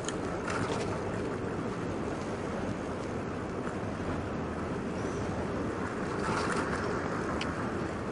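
Steady rushing wind noise on the microphone of a phone carried on a moving bicycle, with a couple of light clicks.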